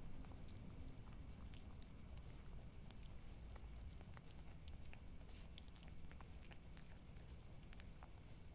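Ginger kitten eating rice, with faint small scattered clicks of chewing and mouthing food, over a steady high-pitched insect chirring.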